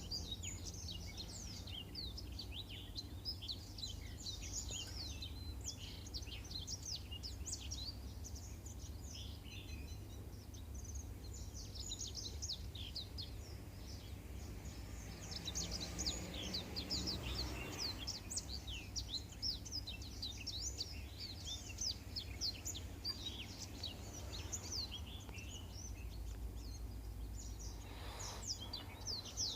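Black-throated canary (blackthroat) singing a long, rapid run of high twittering chirps and trills, over a steady low hum.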